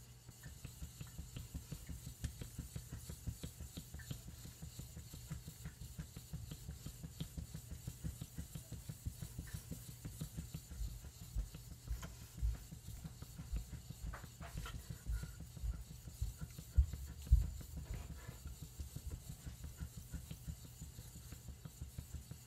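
Kato KU gyuto blade stroked back and forth on a wet, soft Ohira suita natural Japanese whetstone, a quick even rhythm of about three to four strokes a second. A few louder bumps come past the middle.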